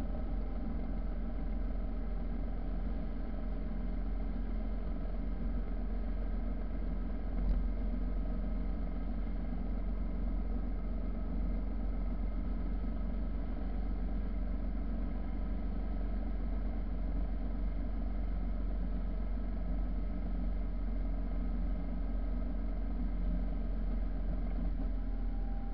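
Motorcycle engine running at a steady cruise, its even hum over a low wind rumble, with one short knock about seven and a half seconds in.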